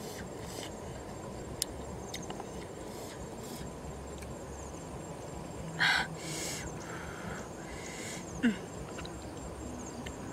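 A person eating squid, with a few short wet mouth sounds while chewing, the loudest about six seconds in and a smaller one about eight and a half seconds in, over a steady outdoor background with faint insects.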